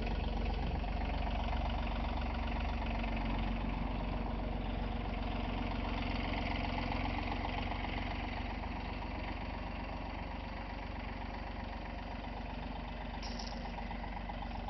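John Deere compact utility tractor's diesel engine running steadily as the tractor drives with its front loader, getting a little quieter in the second half.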